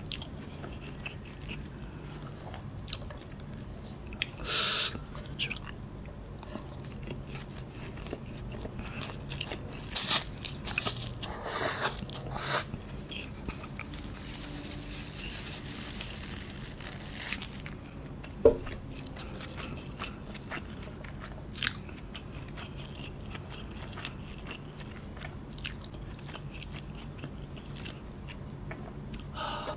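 Close-up eating sounds of noodles being eaten by hand: steady chewing and biting with small wet mouth clicks. The loudest bursts come around ten to twelve seconds in, and there is one sharp click a few seconds later.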